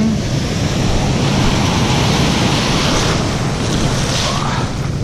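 Ocean surf breaking and its foamy wash running up and over the sand, with wind rumbling on the microphone. The wash swells louder about three seconds in.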